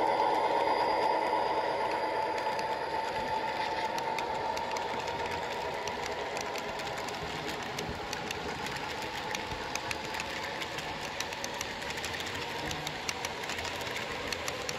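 HO scale model freight train rolling past: the wheels of the freight cars click rapidly over the track, while the hum of the Athearn EMD SD45-2 model locomotive fades over the first few seconds as it moves away.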